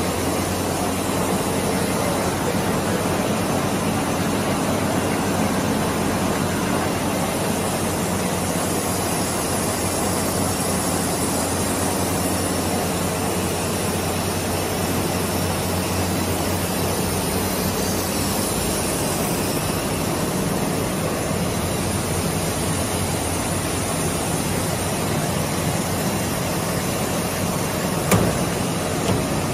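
Solar PV ribbon tinning machine line running: a steady mechanical noise over a low hum, with one sharp knock near the end.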